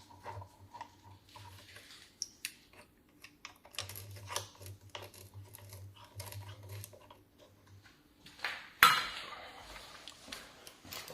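Clinks and clatter of metal being handled, a run of scattered clicks and knocks, with one loud clank about nine seconds in.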